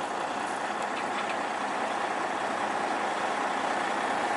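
Backhoe engine running steadily, with a faint constant whine in the noise.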